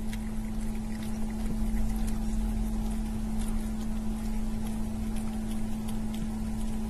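A steady low hum holding one constant tone, with a low rumble beneath it and a few faint ticks scattered through.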